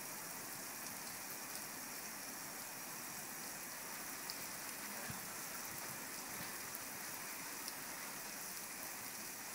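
Artificial rain from special-effects rain towers falling steadily on a wet street: an even hiss of water drops on the road.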